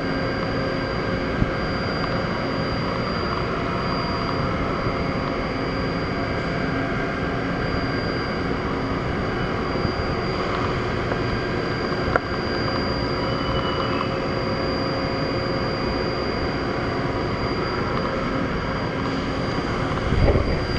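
Niigata SPN-50 horizontal machining centre running with a steady mechanical hum and several steady whining tones while its B-axis rotary table turns the tombstone fixture. A single click comes about twelve seconds in.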